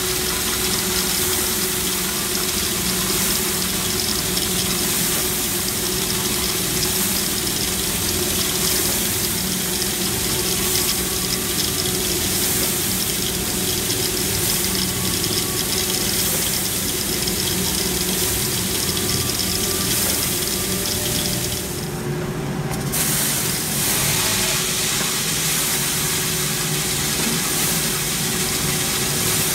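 Giesen W15 drum coffee roaster running with a steady hum under a continuous rushing hiss of coffee beans pouring. About three quarters of the way through the sound breaks off abruptly and resumes with a different low hum, as roasted beans spill from the drum into the cooling tray.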